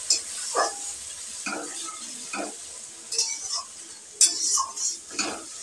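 A metal spatula stirring and scraping spice paste frying in oil in an aluminium kadai, over a steady sizzle. The strokes come irregularly, with a sharper metal clink about four seconds in; this is the masala being fried down (kasha) after the ground spices go in.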